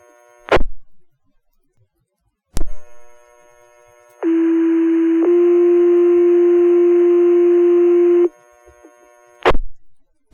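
Two-tone sequential pager tone-out over a fire dispatch radio channel, alerting the volunteer fire department: a steady low tone held about a second, then a slightly higher tone held about three seconds that cuts off sharply. It is framed by sharp radio clicks as the transmitter keys up and unkeys.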